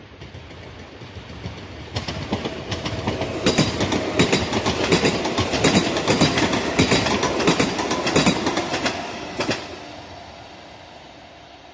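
Regional electric multiple unit, two EN63A units coupled together, passing at speed. The wheels clatter rapidly over the rail joints, building up, then fading as the train moves away.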